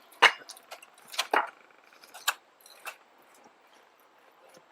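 A handful of sharp, irregular scrapes and clicks of excavation hand tools working gritty, stony soil.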